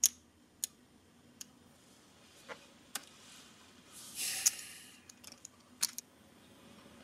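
Faint, scattered clicks of clay poker chips being handled at the table, with a brief soft rush of noise about four seconds in.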